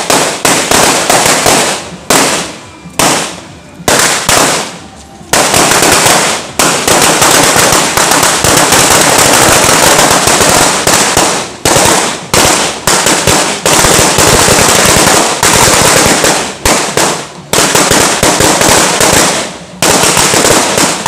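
Firecrackers going off in rapid succession: sharp cracks in separate bursts for the first few seconds, then a nearly continuous crackling barrage broken by brief gaps.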